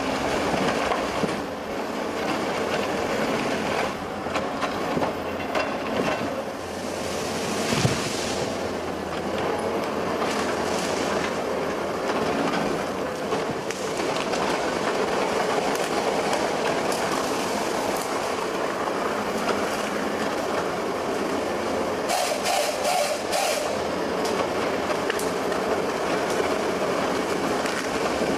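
Satco 323 harvesting head on a Caterpillar 320D excavator processing a tree stem. The feed rollers drive the stem through the delimbing knives while bark and branches are stripped off, over the excavator's engine and hydraulics. The noise is loud and steady, with a short cluster of sharp clicks about three quarters of the way through.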